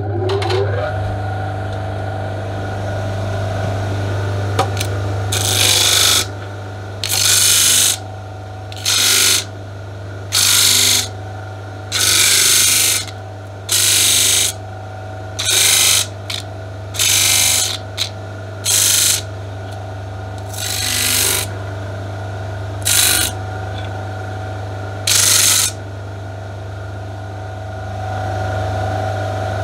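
Record Power DS300 disc sander running with a steady hum, with about a dozen short bursts of sanding noise as a resin-stabilised spalted beech pen blank is pressed against the spinning disc to grind off excess resin crystals.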